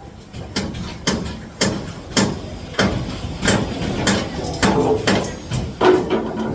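Hammer blows on aluminium formwork: about ten sharp metallic strikes in a steady rhythm, some ringing briefly.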